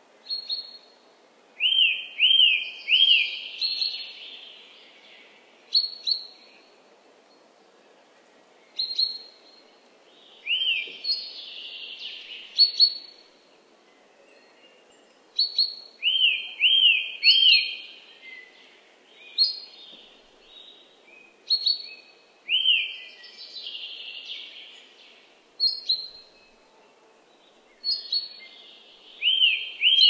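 Songbirds singing in woodland: a song of three or four quick rising-and-falling notes running into a rough trill, repeated about every six seconds, with short sharp high chirps in between. A faint steady background hush lies underneath.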